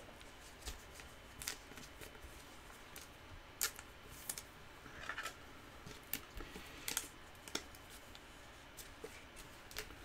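Trading cards and plastic card holders being handled: faint, scattered clicks and rustles. This fits cards being slipped into soft sleeves and rigid top loaders.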